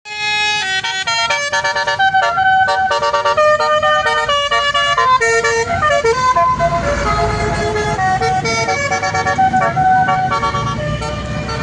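Basuri (telolet) musical horn playing a quick melody, its notes stepping up and down every fraction of a second with several horn tones often sounding together as chords. A low rumble joins in from about halfway through.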